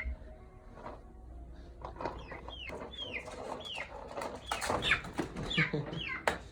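Chickens calling: a run of short falling chirps, about two a second, starting about two seconds in, with a few clicks among them.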